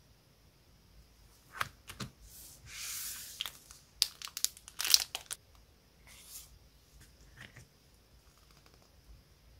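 Crinkling and rustling of a clear plastic sleeve and paper as a square illustrated paper set is handled and slid out. A longer rustle comes about three seconds in, and a cluster of sharp crackles follows between four and five seconds in.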